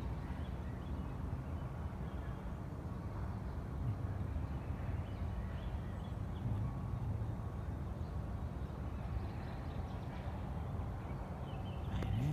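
Outdoor background noise: a steady low rumble with faint, scattered higher sounds and no distinct event.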